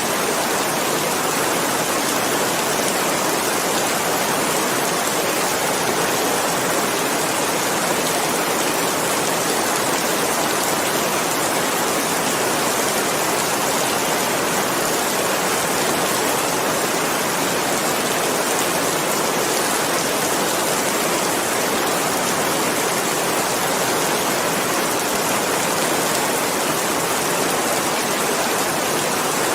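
Steady rain falling, a constant even hiss with no separate drops, thunder or changes.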